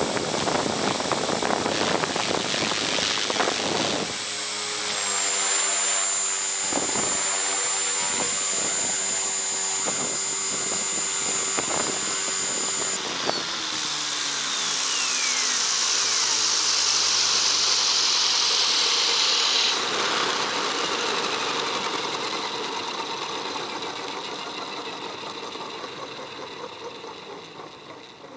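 Align T-Rex 450 Sport electric RC helicopter, heard from a camera mounted on it: a high steady motor whine over rotor noise. About halfway through the whine cuts off and falling tones sweep down as the motor and rotor spool down with the helicopter on the ground, and the noise then fades away.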